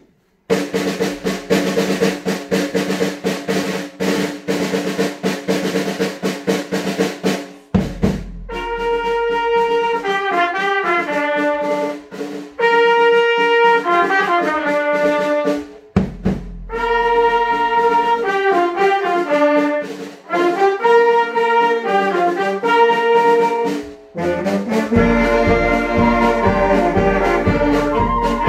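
Children's brass band playing: a snare drum roll for the first seven seconds or so, then trumpets and other brass take up a melody in phrases, each opened by a low drum stroke. From about 25 s a steady low drum beat joins the brass.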